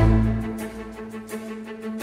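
Background music: a deep bass hit at the start, then a held low note that slowly fades under a light regular beat.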